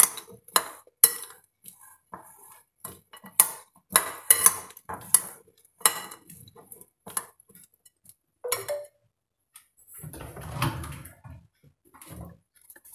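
Steel spoon stirring chopped salad in a ceramic bowl: irregular clinks and scrapes of metal against the bowl. About ten seconds in there is a softer, duller handling noise.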